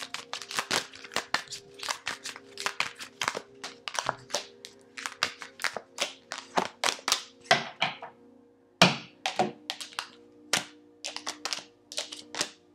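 Tarot cards being handled and laid down on a table: a quick run of sharp card snaps and slaps, several a second, thinning out to a few separate slaps in the second half.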